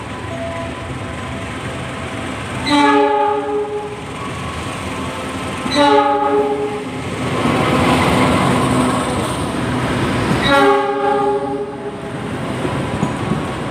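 Train horn sounding three blasts of about a second each, the last a few seconds after the first two, over the steady rumble of a passing train's wheels on the rails.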